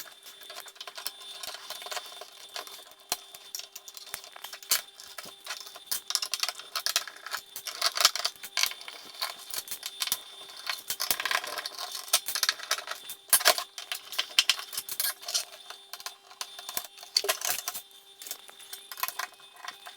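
Quick, irregular clicks, taps and small clatters of a screwdriver, screws and plastic casing parts as a PlayStation 2 console is taken apart, sped up.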